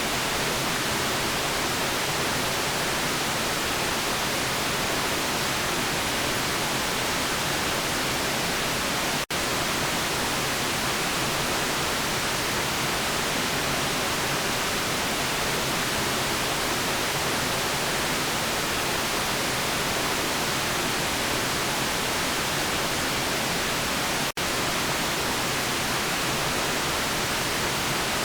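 Steady hiss of a white-noise sleep track, even and unchanging, with two momentary dropouts, one about nine seconds in and one about three-quarters of the way through.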